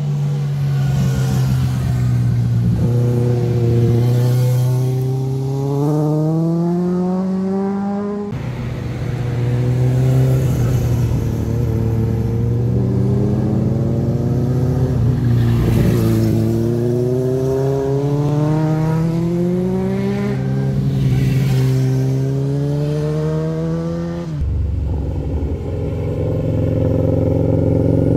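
Motorcycle engines as bikes ride through a hairpin bend one after another: each engine note dips as the bike takes the corner, then climbs steadily as the rider accelerates out. The sound changes abruptly about 8 seconds in and again near the end as one bike gives way to the next.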